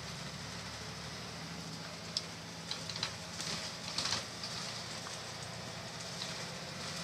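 City bus running, heard from inside the passenger cabin: a steady engine hum, with a brief run of rattles and clicks from the cabin a couple of seconds in.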